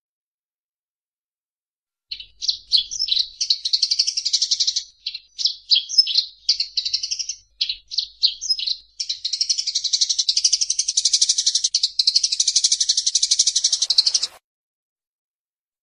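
Eurasian tree sparrows chattering in a fight: rapid, high chirps starting about two seconds in, first in short clusters, then a dense unbroken run of fast chirps that cuts off suddenly near the end.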